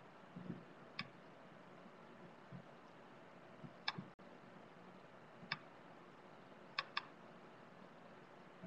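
Faint, scattered computer clicks, about five over several seconds, two in quick succession about seven seconds in, over quiet room tone with a few soft low thuds.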